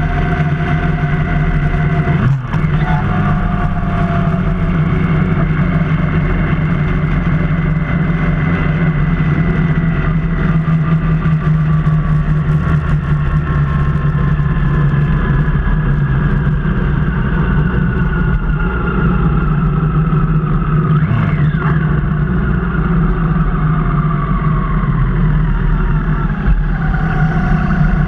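Motorcycle engine running under way, heard from the rider's seat with wind rush. The engine note eases slowly downward as the bike slows, with a brief dip about two seconds in.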